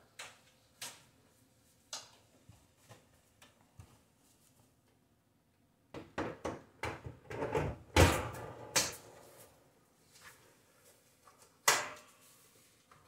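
Oven door being fitted back onto its hinges: a few light clicks, then a run of metal knocks and clunks about six to nine seconds in, the loudest near eight seconds, and one more knock near the end.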